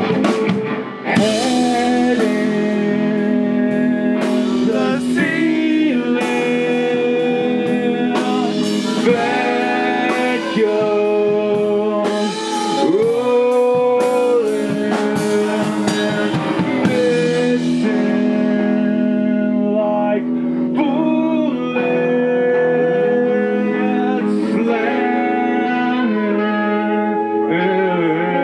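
Live rock band playing a song: electric guitars and bass with drums and cymbals, and sung vocals. The cymbals and drums drop out about two-thirds of the way through, leaving the sustained guitars.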